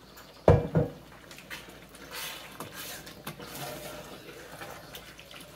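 A couple of sharp knocks about half a second in, then a wooden spoon stirring a thick tomato-and-beef goulash in a stainless-steel pot, with soft, wet, irregular stirring sounds.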